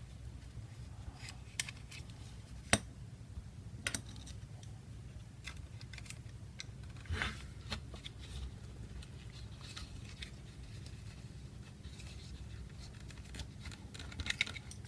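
Small parts of an airsoft KWA M11 lower receiver being handled and worked into place: scattered light clicks and brief scrapes, one sharper click about three seconds in. A faint steady hum runs underneath.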